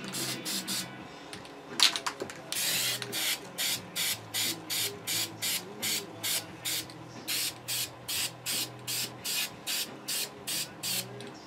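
Aerosol spray-paint can spraying in short hissing bursts, about two or three a second, after one longer spray about two and a half seconds in.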